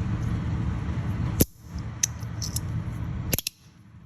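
Compoform Allure magnetic fidget slider being slid back and forth, giving sharp clicks as it snaps into place, the loudest about a second and a half in and near the end. Underneath is a low rumble that cuts out abruptly twice.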